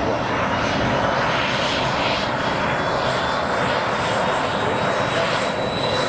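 MiG-17F's Klimov VK-1F turbojet running at taxi power: a steady jet roar with a high turbine whine that climbs slowly in pitch.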